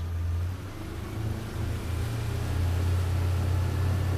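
Outboard motor driving a small fishing boat: a low, steady engine drone that grows louder as the boat picks up speed.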